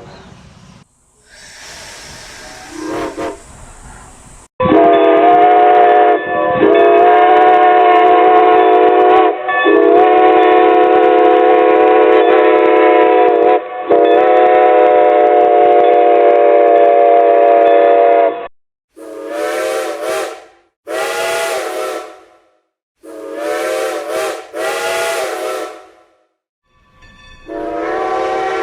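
Strasburg Rail Road No. 90's steam locomotive whistle in several stock recordings back to back. After a few seconds of steam hissing, there is one long blast of about fourteen seconds with brief breaks, then four short blasts in two pairs, then another blast that begins near the end.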